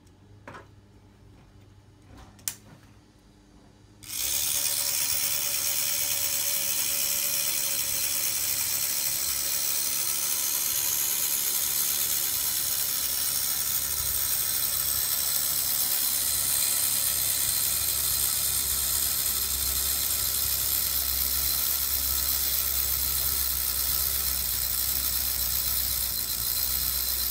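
Meccano clockwork motor running: its wound spring drives the gear train with a steady mechanical whirr from about four seconds in, after a couple of small clicks as the motor is handled.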